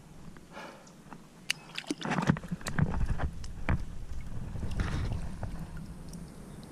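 Shallow pond water splashing and sloshing as a hand and a freshly caught snakehead move in it, with a few sharp clicks and knocks of handling near the start. It settles down near the end.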